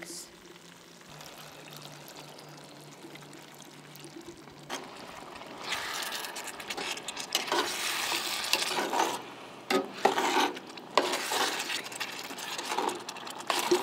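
Sauce sizzling and bubbling in a cast iron skillet on a camp stove while metal tongs stir through it, with a few sharp clicks of the tongs against the pan. The hiss comes in about five seconds in, after a few quieter seconds.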